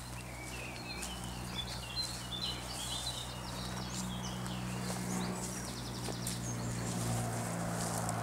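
A small songbird singing a rapid, varied warbling phrase over the first few seconds, followed by a few higher scattered notes and a short buzzy trill.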